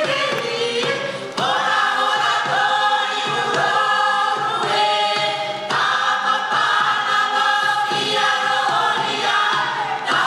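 Tahitian himene choir singing in several voice parts, long held chords. New phrases enter about a second and a half in and again near six seconds.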